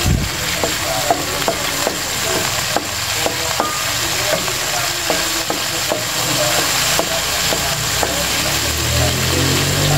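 Wooden spatula stirring chopped garlic in sizzling sauce in a nonstick wok. The frying hiss is steady, and the spatula knocks lightly against the pan about twice a second.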